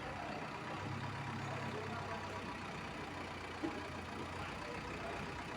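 Heavy diesel engine of the working machinery running steadily. Its low hum swells about a second in and eases back after about four and a half seconds, with a brief click near the middle.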